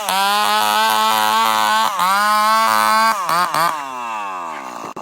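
Chainsaw engine held at high revs, its pitch dipping briefly and recovering twice, then blipped a few times and released so that it winds down steadily in pitch.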